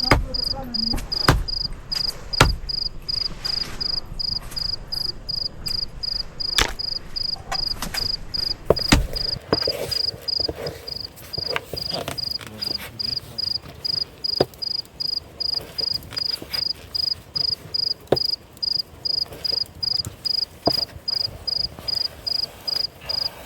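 Cricket chirping steadily: a high, even pulse a few chirps a second, with sharp knocks every few seconds.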